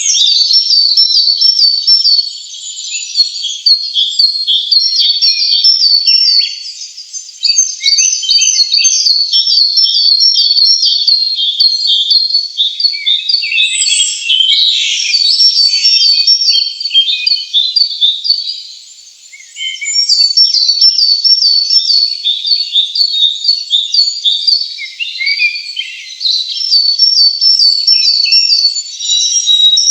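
Small songbirds chirping, several overlapping birds repeating quick high notes in rapid runs, with brief lulls about six and nineteen seconds in.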